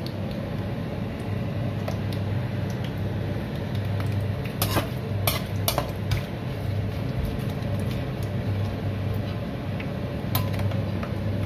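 A slotted turner knocking and scraping against a frying pan as pork-skin pieces are stirred in hot oil during their first fry for chicharon, with a few sharp clinks near the middle and one more near the end. A steady low hum runs underneath.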